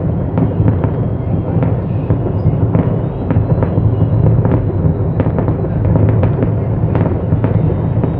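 Fireworks grand finale: a dense barrage of aerial shell bursts blending into a continuous loud rumble, with sharp cracks several times a second.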